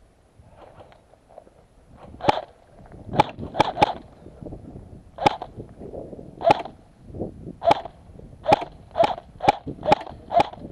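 Airsoft rifle firing single shots on semi-auto: about a dozen sharp cracks at uneven intervals, some in quick pairs, starting about two seconds in.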